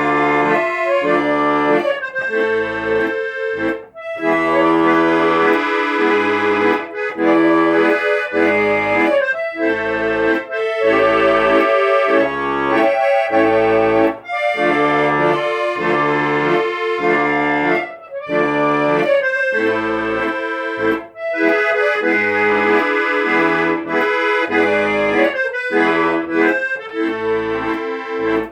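Accordion playing an instrumental melody of sustained notes over a rhythmic bass-and-chord accompaniment.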